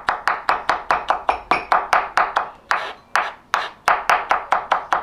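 Kitchen knife rapidly mincing a garlic clove on a wooden cutting board: quick, sharp knocks of the blade on the board, about five a second, with a couple of short breaks.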